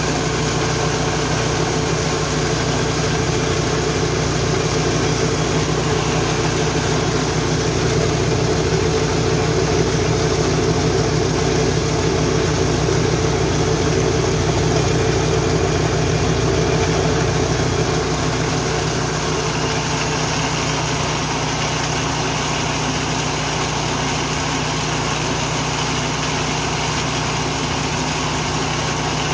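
Richi KD 350 rice and corn mill running, a steady mechanical drone that is a little louder from about six seconds in until about eighteen seconds in.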